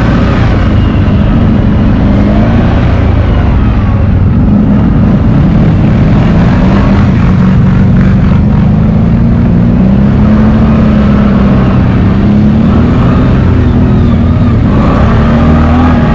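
CFMoto X8 ATV's V-twin engine running under way at low trail speed, its note drifting up and down with the throttle and climbing a little near the end.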